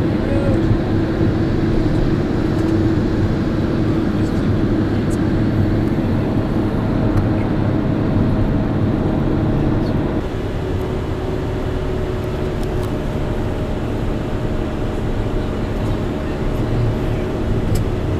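Steady road and engine noise of a moving car heard inside its cabin, with a constant low hum; it drops a little about ten seconds in.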